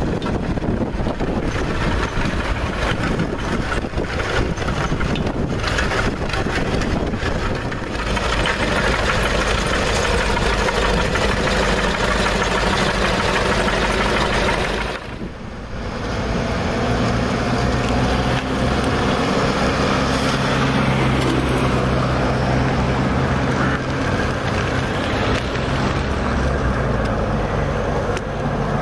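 Road roller's engine running steadily, with wind buffeting the microphone in the first few seconds. After a brief drop about halfway, a steady low engine hum with a clear pitch takes over.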